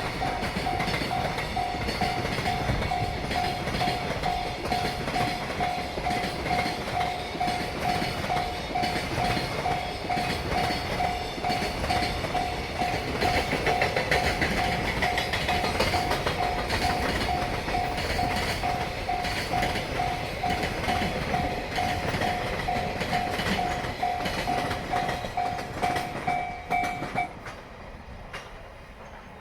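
A JR Freight container train of Koki flatcars rolls past at speed, its wheels clacking loudly over the rail joints. The level crossing's warning bell rings steadily about twice a second, then stops near the end as the last wagons clear and the train noise falls away.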